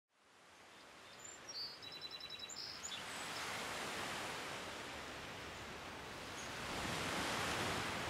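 Outdoor nature ambience fading in from silence: a steady rushing hiss. A small bird sings a rapid trill of high repeated notes and a few short high calls between about one and three seconds in. The hiss swells a little near the end.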